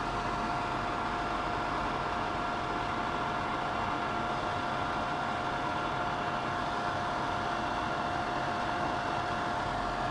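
Steady machine whir and hiss with a constant hum tone, unchanging throughout.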